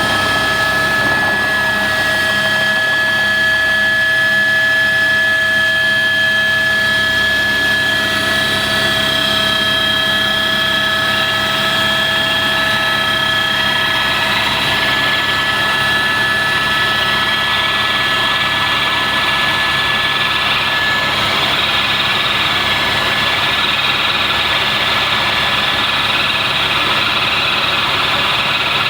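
Helicopter running: a loud, steady drone with several high whining tones, which fade out over the middle of the stretch and leave a broad, even rushing noise.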